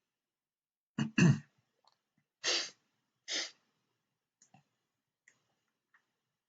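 A person's cough about a second in, followed by two short, noisy breaths, then a few faint clicks.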